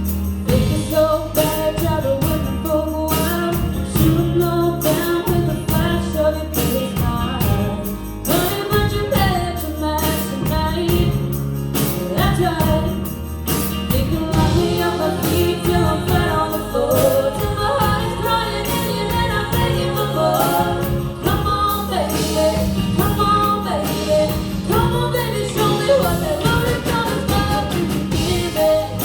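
A song performed by a woman singing over a band, with a steady bass line and regular drum hits.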